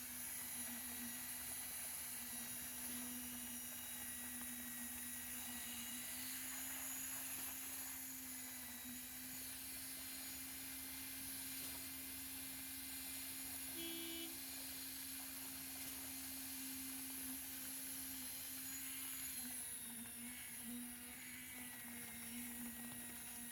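Concrete poker vibrator running with a steady hum at a constant pitch.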